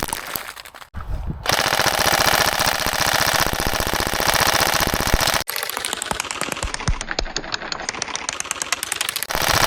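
Airsoft electric rifle firing long full-auto strings, a fast even rattle of many shots a second. Between about five and a half and nine seconds in it sounds muffled, its high end cut away.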